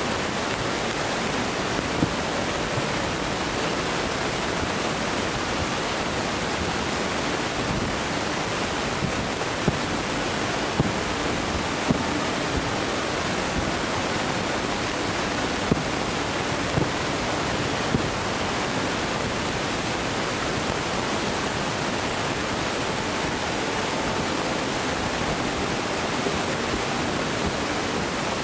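Distant aerial fireworks going off: about seven short, sharp reports, scattered between about two and eighteen seconds in, over a steady rushing noise.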